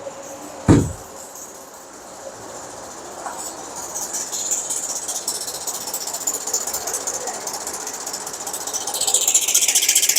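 A 2012 Hyundai Equus engine running with a fast, rapid metallic ticking (딱딱딱) that grows louder toward the end, after a single heavy thump just under a second in. The mechanic takes the ticking for a stretched timing chain.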